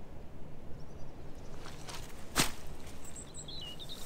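Footsteps of walking boots on grass: a few soft steps, with one sharper step about two and a half seconds in, over a low steady background rumble. Birds chirp faintly near the end.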